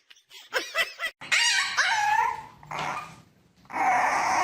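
A dog vocalizing: a few short sounds, then longer calls that bend up and down in pitch, one about a second in and another starting near the end.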